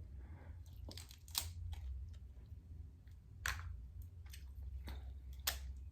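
Snow crab shell being cracked and picked apart by hand: three louder sharp cracks about two seconds apart, with fainter clicks between, over a low steady hum.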